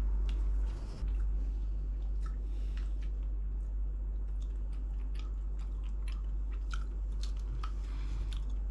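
A person chewing food close to the microphone, with many small irregular mouth clicks, over a steady low hum.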